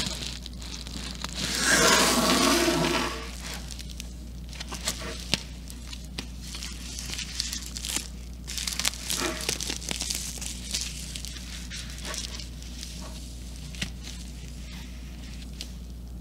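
Padded bubble-lined plastic mailer being torn open, then its bubble lining crinkling and rustling as a graphics card is slid out. The loudest part is a rough tear lasting about a second and a half near the start, followed by lighter, irregular crinkles and clicks.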